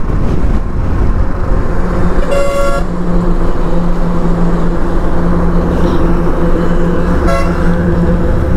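Motorcycle engine running under heavy road noise while riding. A vehicle horn toots twice: a half-second toot about two seconds in, and a short one near the end.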